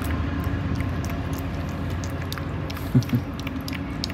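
A puppy eating dog food from a stainless steel bowl, with small irregular clicks of chewing and food against the bowl over a steady low hum. A brief low sound comes about three seconds in.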